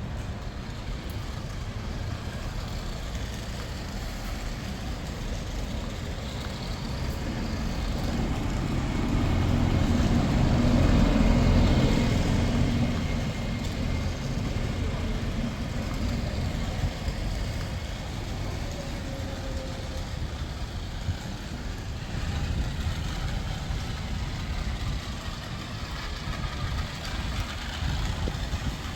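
Motor vehicle noise: a steady low engine rumble that swells to its loudest about ten to twelve seconds in, then eases back to a steady level.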